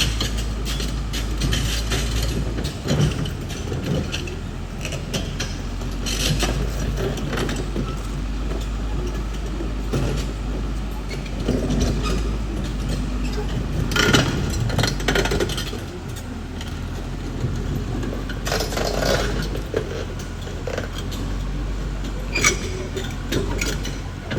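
Caterpillar D6R XL bulldozer's diesel engine running steadily under load, with the clanking and rattling of its steel tracks over rock. Sharp clanks come now and then, the loudest a little over halfway through.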